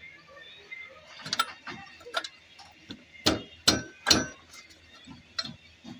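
Metal hand tools clicking and clanking on a motorcycle's rear wheel and brake parts during reassembly: a string of sharp metallic knocks, the loudest three coming in quick succession about three to four seconds in.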